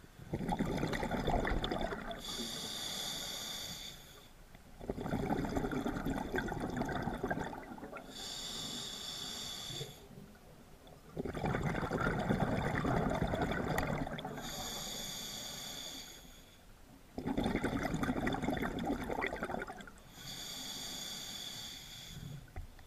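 Scuba diver breathing through a regulator underwater: four breaths about six seconds apart, each a loud rush of exhaled bubbles followed by the hiss of an inhale through the regulator.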